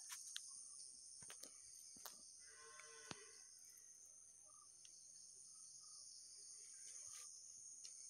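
Faint, steady, high-pitched insect chorus, with a few soft ticks.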